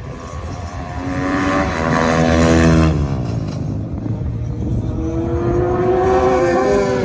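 Racing superbikes at full throttle passing by one after another, each engine's pitch climbing as it nears and dropping as it goes past: the first and loudest a few seconds in, the second near the end.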